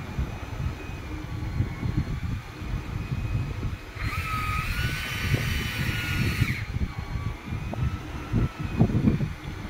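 Wind buffeting the microphone over a boat engine running steadily with a faint whine. About four seconds in, a big-game fishing reel whirs at a high pitch for about two and a half seconds as line runs through it under the strain of a big fish.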